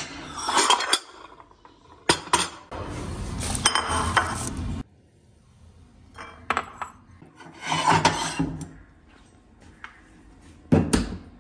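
Bowls and plates clinking, rattling and scraping as they are lifted from a kitchen cabinet shelf and set down on a stone counter, with a few sharp knocks; the last, near the end, is a cabinet door being shut.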